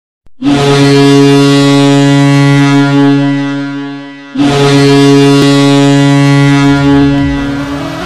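Ice hockey goal horn, the Boston Bruins' horn, sounding two long, loud blasts, the second starting about four seconds in; it signals a goal scored. A goal song's music starts as the second blast ends.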